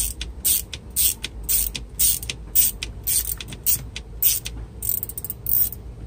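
Small ratchet driver with a T15 Torx bit clicking as it is swung back and forth, about two sharp clicks a second with a quicker run of clicks near the end, while it backs out the screws holding the steering-column clock spring and switch assembly.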